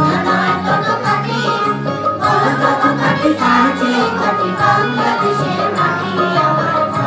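A group of children and adults singing a Bengali song together, with instrumental accompaniment.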